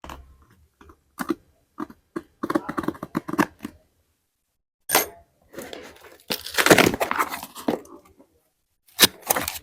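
Hands and small tools working on a phone: a run of short clicks and taps, then a longer scratchy scraping sound, with a sharp click near the end.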